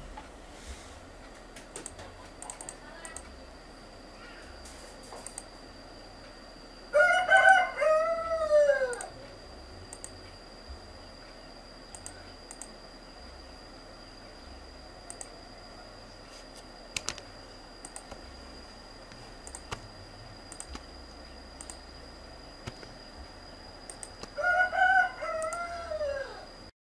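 A rooster crowing twice, each crow about two seconds long and falling in pitch at the end, the loudest sound here. Under it, faint irregular mouse clicks as keys on an on-screen keyboard are clicked one at a time.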